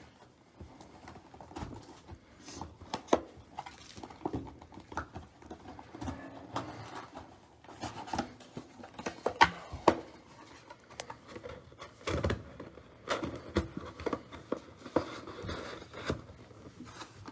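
Hands tearing and crinkling the plastic wrap off a cardboard trading-card box and pulling the box open: irregular crackles, rustles and sharp taps.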